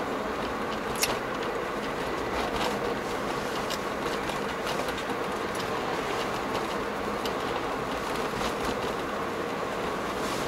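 Steady road and engine noise inside a moving car's cabin, with a few faint clicks and taps; the loudest comes about a second in.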